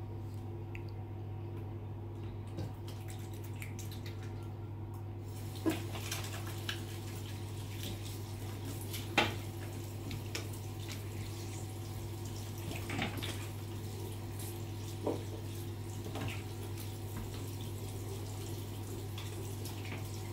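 Tap running into a bathroom sink, the water starting about five seconds in, with a few sharp knocks against the basin; a steady low hum underneath.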